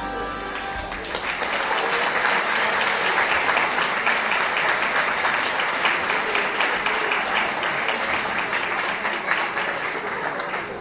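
Audience applauding at the end of a children's choir song. The last sung note fades out in the first second, then dense clapping carries on steadily and eases a little near the end.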